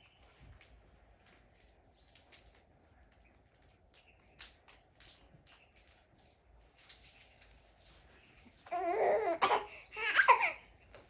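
A baby babbling and cooing twice near the end, two short pitched, wavering vocal sounds, after several seconds of faint scattered clicks.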